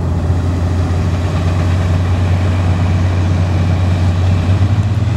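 Big farm tractor's diesel engine running steadily at low speed while hooked to a pulling sled, a deep, even rumble with a slight throb near the end.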